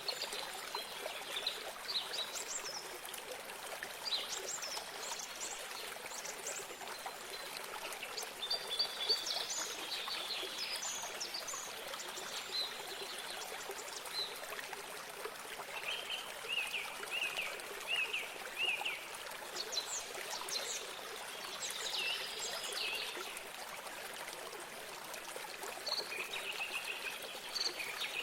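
Small stream of water trickling and running steadily, with songbirds chirping and singing over it. In the middle comes a quick run of five or six short repeated notes.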